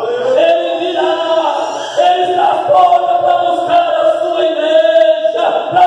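A man's voice over the church sound system, chanting in long, held, sung phrases rather than plain speech.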